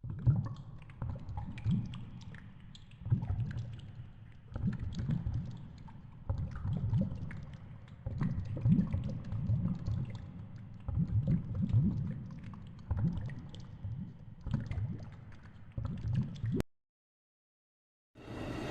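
Low gurgling rumble rising and falling in swells every second or two, with faint clicks over it. It cuts off abruptly into silence about two seconds before the end.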